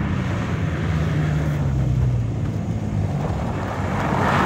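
Car engine running under way during a drift run on lake ice, its low note sagging a little over the first few seconds and then holding steady, with a rushing noise that swells near the end.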